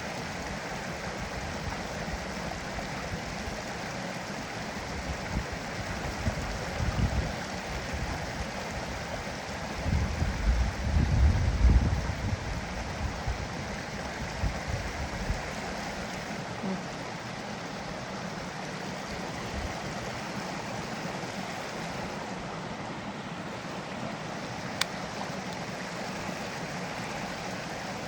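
Creek water flowing steadily, with a brief low rumble about ten seconds in and a faint click near the end.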